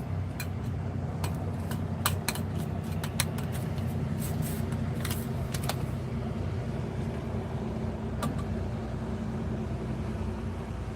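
Fishing boat's engine running steadily with a low hum, with a string of sharp clicks and light metallic rattles through the first half and one more click later on.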